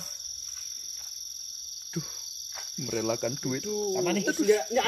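Crickets chirping in a steady high chorus. People's voices join about three seconds in.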